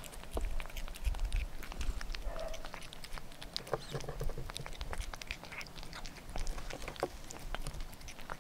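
A calico cat eating small flaky pieces of fish close to the microphone: wet mouth smacking and licking with many quick, crisp clicks of chewing, and a few low bumps in the first couple of seconds.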